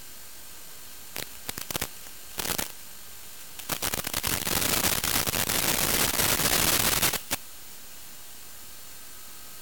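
Steady radio hiss on the audio channel of an analog FPV video link, broken by crackling static: a few short bursts between one and three seconds in, then a loud stretch of about three and a half seconds that cuts off suddenly. This is the sound of the video signal breaking up as the low-flying plane's link weakens.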